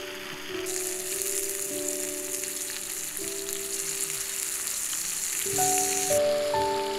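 Slices of beef steak sizzling in a frying pan over campfire embers. The hiss starts sharply about a second in and cuts off suddenly near the end, over soft background music.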